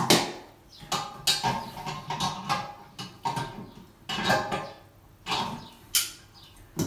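Clinks, knocks and scrapes of tools and fittings at the base of a ceramic close-coupled toilet as its mounting is tightened, a run of short sharp strokes about once a second, some with a brief ring.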